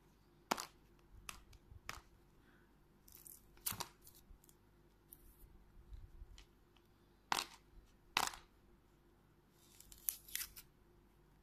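Hard plastic capsule egg being handled and its sealing sticker picked at and peeled: several sharp plastic clicks, the loudest two about a second apart in the second half, and short crinkly tearing rasps about three seconds in and near the end.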